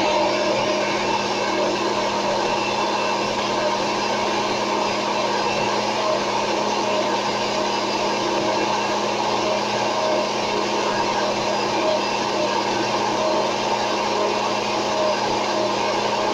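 Cuisinart countertop blender running steadily on its low setting, blending rolled oats in water into a thin oat drink.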